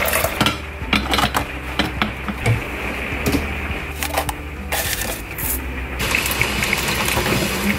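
Plastic clicks, knocks and clatter as a Mr. Coffee drip coffee maker is filled with water and set up, with a paper filter handled into the basket.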